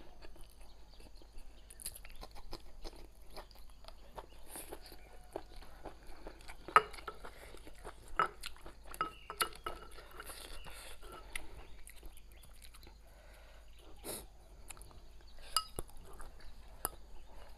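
Close-up eating sounds: chewing and crunching on stir-fried chilli peppers with rice, with wooden chopsticks clicking and scraping against porcelain bowls. There are sharp clicks throughout, the loudest about seven seconds in and again about fourteen seconds in.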